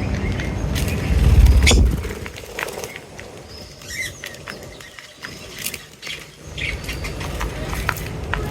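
Small birds giving a few short chirps, mixed with sharp clicks and a low rumble. The rumble is loudest about one to two seconds in, drops away through the middle and returns near the end.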